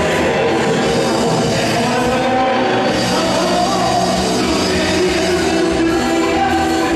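Live band playing loud amplified music through the stage PA, steady throughout.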